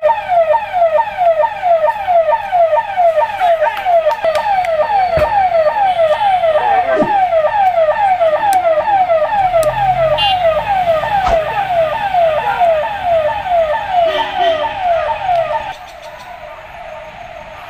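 Electronic siren on a forest department jeep, sounding a fast repeating falling tone, about three sweeps a second, used to drive a wild elephant back. It drops in level about sixteen seconds in.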